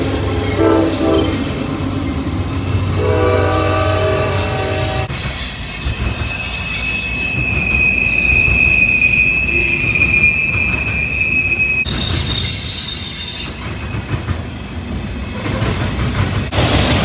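A CSX freight train passing: the locomotive horn sounds a short chord blast, then a longer one about three seconds in, over the steady rumble of the train. From about six seconds to twelve seconds a high, steady wheel squeal rises above the rolling cars.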